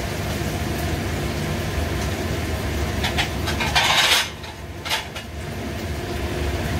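Steady low hum of a kitchen range hood's exhaust fans running. About four seconds in a short loud hiss is heard, after which the sound is somewhat quieter, with a couple of light clicks.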